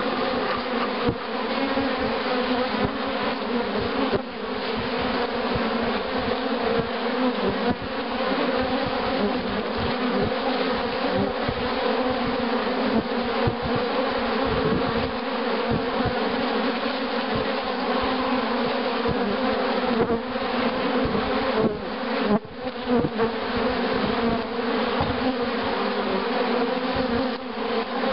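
A crowd of honeybees flying in front of a hive entrance makes a loud, steady buzzing hum, with single bees buzzing briefly louder as they pass close by. This is an orientation flight: young bees learning to fly, circling and facing the hive to learn where they live.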